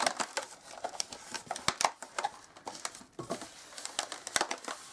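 Inflated latex modelling balloons (260 size) rubbing and squeaking against each other and against cotton gloves as they are pressed and fitted together: an irregular run of short squeaks, creaks and clicks.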